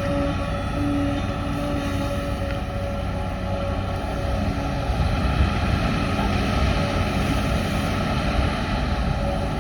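LiuGong 922E excavator's diesel engine running steadily: a continuous low hum with a few faint steady tones above it.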